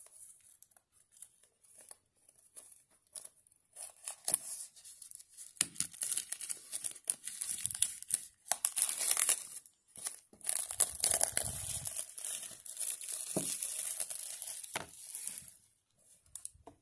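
Clear plastic shrink-wrap being torn open and peeled off a mediabook case. It crinkles and crackles in a long run that starts a few seconds in and stops shortly before the end.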